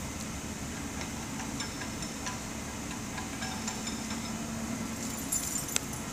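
Light metallic clinks and jingles from the hoist chains and rigging as a suspended screw compressor casing is guided by hand, with a quick cluster of clinks ending in a sharp click near the end. A steady low workshop hum runs underneath.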